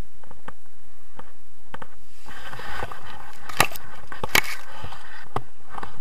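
Steady wind rushing over the microphone of a tandem paraglider coming in to land. From about two and a half seconds in comes a stretch of rustling and scraping with two sharp knocks as the harnesses touch down on the grass.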